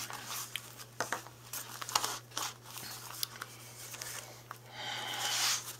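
Paper pages and binding of a handmade journal being handled: crisp crinkling rustles and short taps, with a longer rustle near the end.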